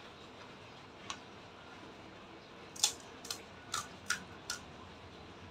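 Close-up chewing of a pani puri, the mouth making short, sharp, crunchy clicks: one about a second in, then five in quick succession near the middle.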